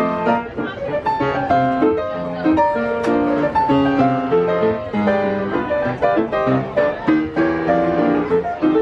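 Piano playing a lively tune of quick notes and chords.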